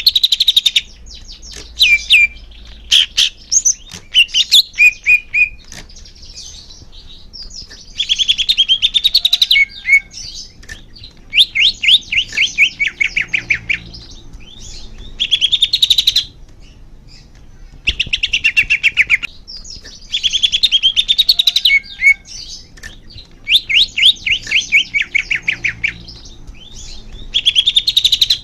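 Green leafbird (cucak hijau) singing: loud phrases of rapid, downward-sliding notes, each phrase a second or two long, repeated every few seconds, with some short sharp notes in the first few seconds.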